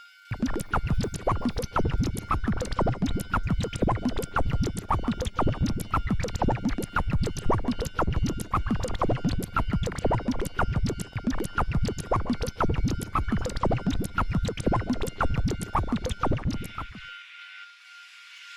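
Railroad crossing warning bell clanging in a rapid, uneven stream of strikes over a steady high ringing tone. The strikes stop shortly before the end, and a hiss begins to swell.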